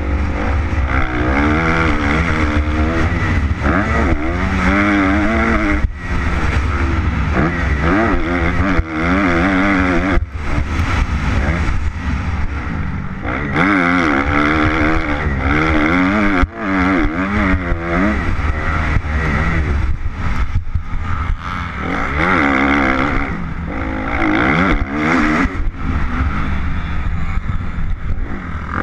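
Motocross bike engine being ridden hard around a dirt track, the revs climbing and falling over and over through gear changes and corners, with the throttle shut briefly several times. A steady rumble of wind on the microphone runs underneath.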